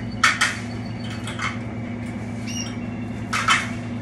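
Caged canaries giving a few short, harsh squawks and chirps, loudest about a third of a second in and again near the end, over a steady low hum.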